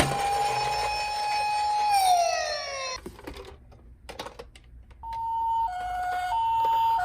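Electronic toy emergency-vehicle sirens. A wailing siren holds one steady note, then winds down and falls away about two to three seconds in, followed by a few clicks and knocks. From about five seconds in, a two-tone hi-lo siren starts, alternating a high and a low note about every half second or so, like the 'pee-po' of a Japanese ambulance.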